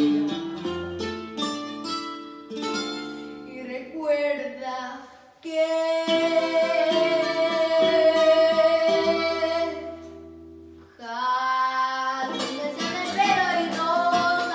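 A girl singing a Peruvian vals criollo over plucked guitar accompaniment. Midway she holds one long note for several seconds, then after a brief lull the singing and guitar pick up again.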